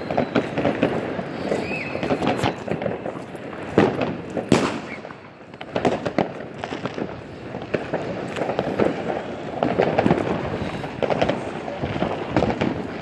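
New Year's Eve fireworks and firecrackers going off all around in a dense, continuous crackle of bangs. Two louder bangs come about four seconds in, and the crackle eases briefly just after five seconds before picking up again.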